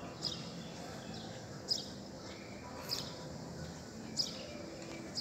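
A small bird chirping over and over, one short high chirp about every second and a bit, over faint steady background noise.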